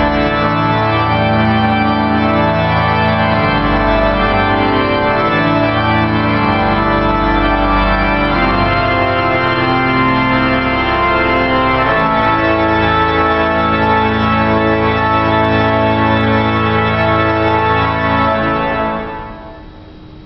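Pipe organ playing loud, sustained full chords that change a few times. About a second before the end the chord is released, and the reverberation of the large hall dies away.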